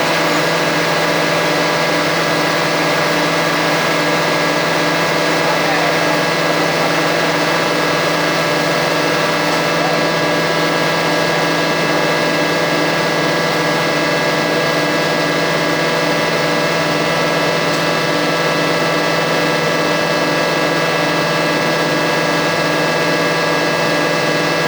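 Rotary veneer lathe and plywood-mill machinery running steadily: a constant hum made of several steady tones, with no changes in level.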